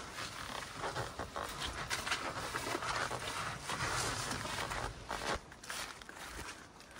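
Footsteps of a person walking through tall grass and brush, the vegetation swishing against their legs in an uneven rhythm as they carry a canoe over a portage trail.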